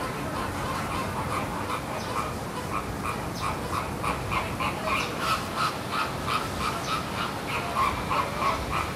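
An animal calling in a series of short, repeated yelps, about three to four a second, growing more distinct from about three seconds in.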